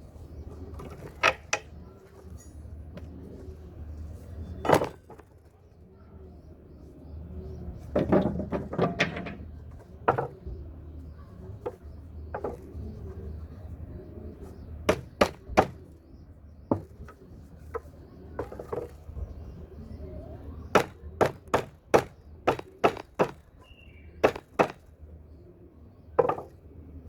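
Hammer striking old wooden boards and their nails: sharp, irregular knocks, some in quick runs of several, as nails are knocked and pried out of the scrap wood.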